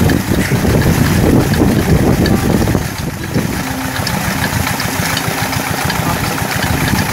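Steady rush of water from a tubewell, with wind buffeting the microphone; a faint low hum joins about three and a half seconds in.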